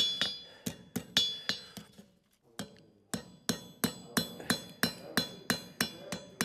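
Farrier's hammer striking a hot steel horseshoe on the anvil, each blow ringing, while the heel is bent out to form a jar calk. A few spaced blows come first and then a short pause. The hammering then resumes at a steady rhythm of about three blows a second.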